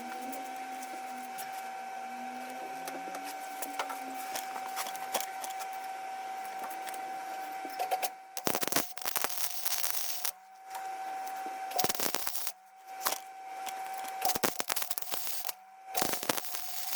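Welding arc crackling in a series of short bursts, about five of them from around the middle on, each lasting up to about a second and a half. Before them is a steady shop hum with a constant tone.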